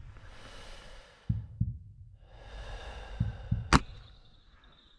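A person breathing heavily close to the microphone, two long breaths. Soft low thumps come between them, and there is one sharp click near the end.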